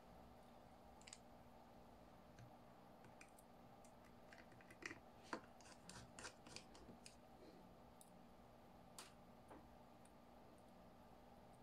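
Near silence with a low background hum, broken by a cluster of faint small clicks and scrapes about five to seven seconds in and one more about nine seconds in.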